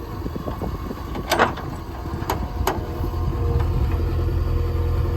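Diesel engine of a JCB 3DX backhoe loader running, getting louder about three seconds in. Three sharp knocks come in the first three seconds, and the first is the loudest.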